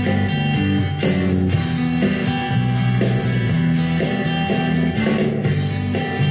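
White Fender Stratocaster electric guitar playing an instrumental, chords and melody notes changing every second or so.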